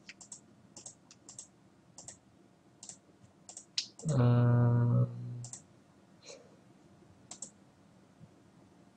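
Computer mouse clicking repeatedly at an irregular pace. About four seconds in, a short, steady low hum lasts about a second and is the loudest sound.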